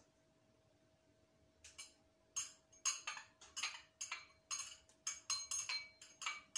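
Small glass jar turned in the hands, its top clicking and clinking against the glass about three times a second, starting nearly two seconds in.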